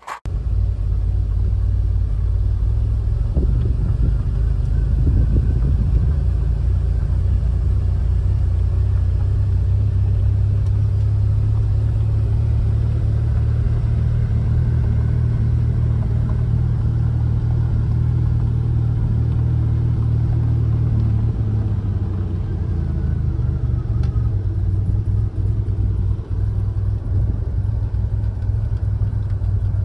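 A 1982 DeLorean DMC-12 driving, its PRV V6 engine running with steady low road rumble, heard from inside the cabin. The rumble eases a little about 21 seconds in.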